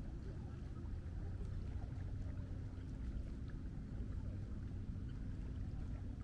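Steady low mechanical drone with a constant hum, like a motor running without change.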